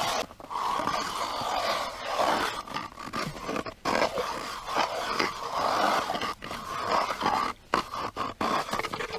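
Hand ice auger being cranked into lake ice, its blades scraping and grinding through the ice in uneven surges with each turn.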